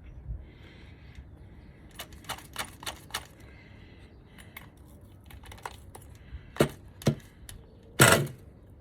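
Clicks, taps and knocks from handling a nitro RC buggy while it is readied for starting, the engine not running, with a louder short rasping burst near the end.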